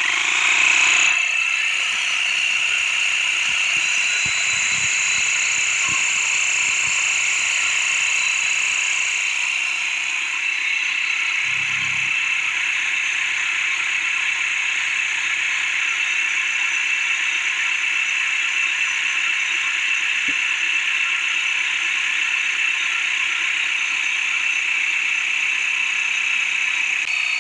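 Improvised air compressor driven by an electric drill, running steadily with a high whine. It has no working pressure switch, so it keeps running instead of cutting out.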